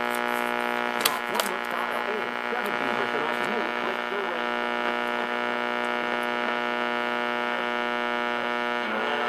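Steady electrical buzzing hum from the speaker of a 1964-65 Buick Delco 980649 AM push-button car radio with no station coming in, with a couple of crackles about a second in and faint wavering sounds in the first few seconds.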